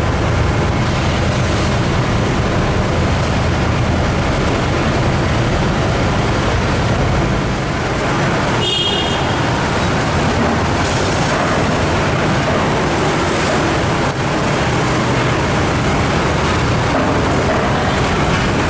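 Steady, loud vehicle engine and road noise with a deep rumble, and a short high-pitched tone about nine seconds in.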